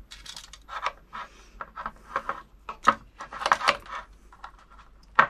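Small metal parts clinking and rattling in irregular short bursts as a scooter motor wire and an MT60 connector are handled for soldering, with a sharp clink about three seconds in.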